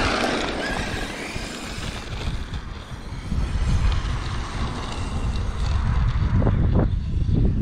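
Wind buffeting the microphone: an uneven low rumble with a grainy rushing haze above it.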